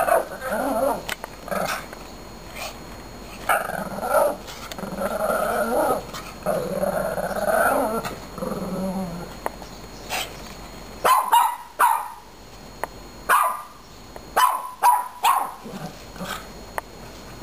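Small dog growling in play while worrying a ball, in long rumbling stretches, then breaking into a string of short, sharp barks in the second half.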